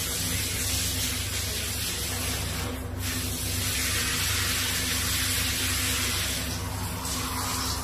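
Handheld shower head spraying water in a tiled shower stall, a steady hiss that dips briefly about three seconds in as the head is moved and hung on its holder.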